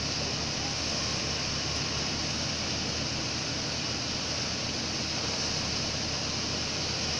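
Seven-fan missile-type paddy thresher running steadily while being fed, its fans blowing threshed straw out through the long delivery chute: an even rushing hiss over a low machine drone.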